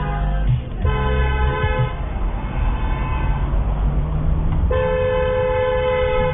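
Car horn honking: a blast of about a second starting about a second in, then a long held blast from near the end, over the steady low rumble of road and engine noise.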